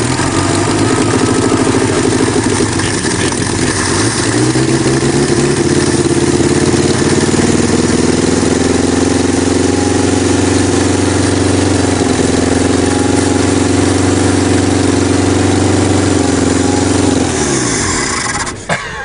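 1961 Ford Anglia's four-cylinder engine running on petrol poured straight into the carburettor, at its first start after sitting about ten years. It runs steadily, the revs picking up a little about four seconds in, then it dies and winds down near the end.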